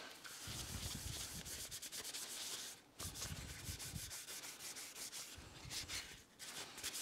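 A cloth rubbing a clear food-safe finish onto a wooden box in quick back-and-forth wiping strokes. The strokes pause briefly about three seconds in and again near the end.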